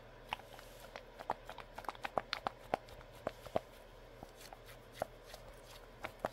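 Soft rubbery Nee-doh squishy toys being squeezed and kneaded in the hands, the stretchy skin giving irregular small sticky clicks and crackles, thickest in the first few seconds and thinning out later.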